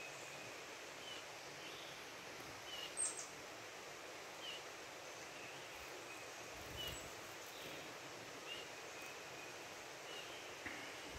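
Quiet backyard ambience with small songbirds giving short, high chirps every second or two, and one louder, sharp call about three seconds in.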